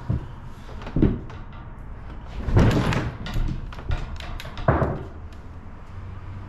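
A loaded, rigged Hobie Compass fishing kayak being lifted by its rear handle: thuds of the hull and a clatter of the gear on board shifting and knocking, loudest a little over two seconds in, with a last thud near the end. The kayak tips to one side as it is lifted, spilling the weight of the gear.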